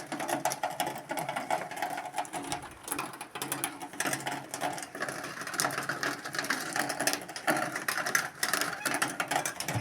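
Chickens clucking among a dense rapid clicking of pecking at feed.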